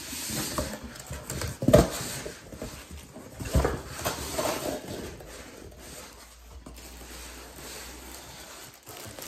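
A cardboard shipping box being opened and rummaged through: rustling and scraping of cardboard and packaging, with two knocks about two and three and a half seconds in, the first the loudest. The handling dies down to a quiet, even background after about five seconds.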